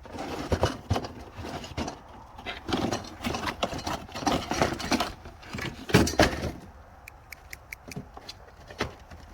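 A folded, zip-tied sawmill band blade being pulled out of its packaging: scraping and metallic rattling, with a heavy clank about six seconds in, then a few light ticks.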